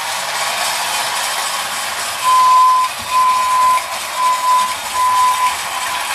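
Marx clockwork toy train running on tinplate track, its wound spring motor and tin wheels making a steady, even rushing noise. From about two seconds in, a steady whistle-like tone toots four times, each about half a second long.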